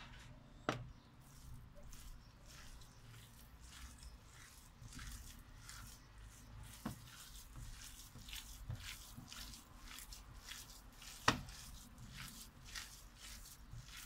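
Hand kneading raw minced meat with flour in a glass bowl: faint, repeated soft squishing. Two sharp knocks stand out, one about a second in and a louder one near the end.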